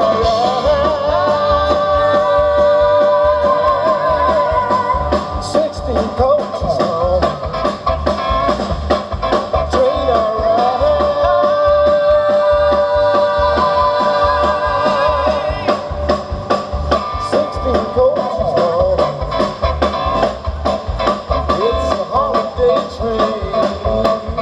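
Live band playing amplified on stage: singing over guitars and drums, with a steady beat.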